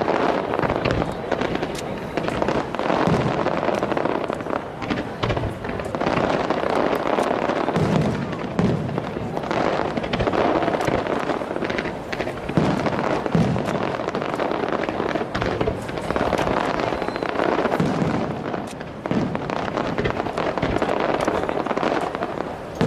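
Fireworks display in full barrage: shells bursting one after another, dull booms overlapping with dense crackling, without a pause.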